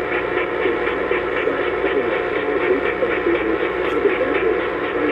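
Off-air radio station audio through a receiver: narrow, muffled sound over a steady hiss, with no clear words.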